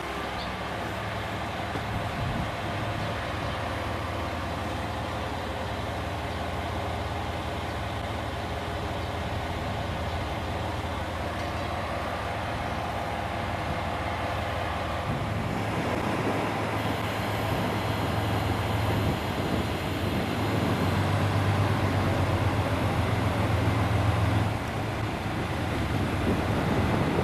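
Diesel railcar engine running, a steady low drone that grows gradually louder, its sound changing about halfway through.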